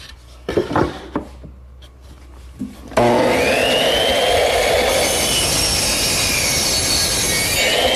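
A few light knocks, then about three seconds in an electric saw starts and crosscuts a wooden piece to length with a steady loud run. Its blade whine shifts in pitch as it cuts and begins to wind down near the end.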